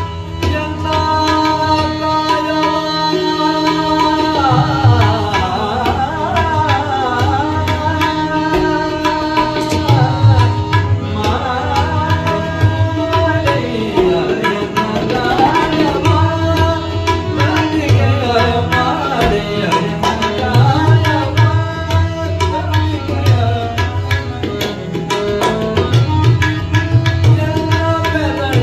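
A male voice singing a Kannada vachana (devotional song) in a melodic, gliding line, accompanied by tabla strokes and the sustained tones of a harmonium.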